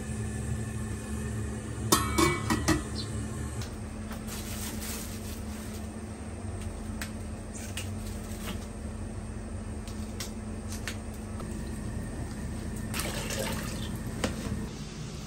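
Kitchen tap running into a stainless steel sink while leafy greens are rinsed and handled, with splashing. A steady hum and a few clicks come before it; the water starts about four seconds in.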